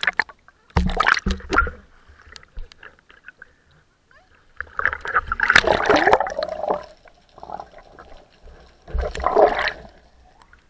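Seawater splashing, sloshing and gurgling against an action camera as it dips in and out of the surface, in irregular bursts with the biggest about halfway through and again near the end.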